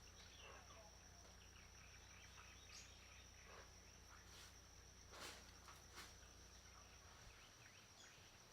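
Very faint forest ambience: a steady high insect drone with a few faint bird chirps and two soft clicks around the middle.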